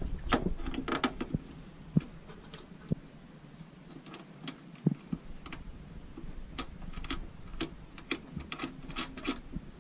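Small clicks, knocks and ticks of the positive battery cable's lug and terminal hardware being fitted and hand-tightened on an Effekta AX M2 solar inverter's battery terminal. There are a few sharper knocks between about two and five seconds in, then a quick run of ticks near the end.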